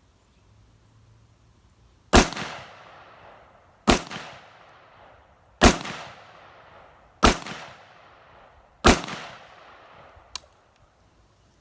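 Five evenly spaced shots from an AR-15 rifle, about 1.7 seconds apart, each with a short echoing tail, fired as a sight-in group. A shorter, quieter click follows near the end.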